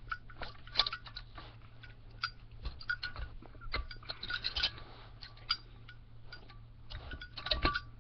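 Vise being cranked down on an empty Zippo lighter case: irregular metallic clicks, clinks and short creaking scrapes as the case is squeezed, with busier clusters in the middle and near the end.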